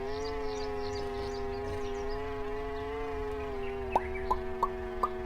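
A steady, pitched buzzing drone with a strong stack of overtones, like an insect-buzz sound effect. About four seconds in, five short rising plinks sound over it, roughly three a second, and faint high chirps run through the first half.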